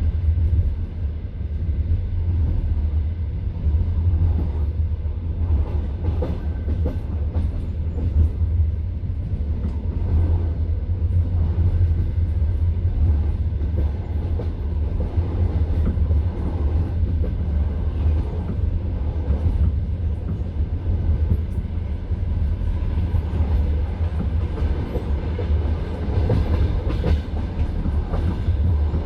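Passenger train running at speed, heard from inside the carriage: a steady low rumble with the wheels knocking over rail joints.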